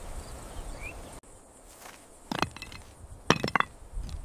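A few sharp knocks and clinks on stony ground: a wooden walking stick being planted and feet stepping on gravel. There is one pair about two and a half seconds in and a quick run of them just past three seconds. Before that, faint open-air ambience with a brief bird chirp cuts out about a second in.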